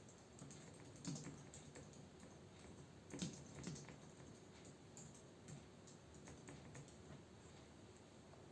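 Faint typing on a computer keyboard: irregular keystrokes, a few louder ones about a second in and around three seconds in, then sparser and quieter.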